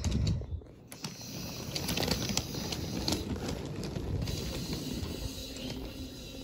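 Munipals toy subway cars pushed by hand along a wooden toy train track, their wheels rolling with a steady low rumble and many small clicks. A single thump sounds at the very start.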